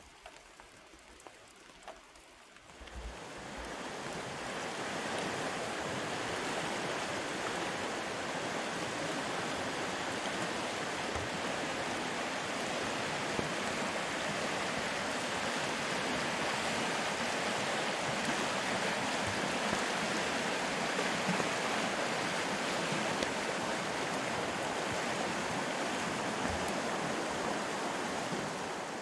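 Rushing water of high, fast-flowing Mill Creek, a steady rush of rapids that swells in about three seconds in after a quiet start.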